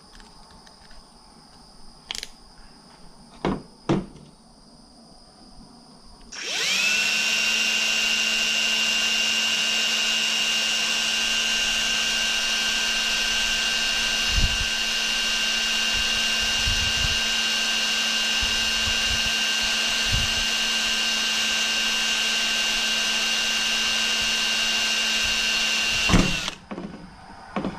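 Electric drill spinning up about six seconds in and running at a steady speed for about twenty seconds, drilling a starter hole with a small bit, then winding down near the end. A few light clicks and knocks come before it starts.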